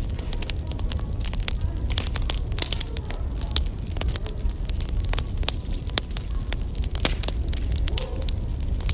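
Firewood burning with dense, irregular crackles and pops over a steady low rumble.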